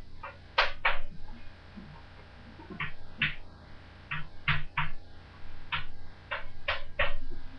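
Chalk writing on a blackboard: short scratching strokes and taps, in small groups of two to four with pauses between.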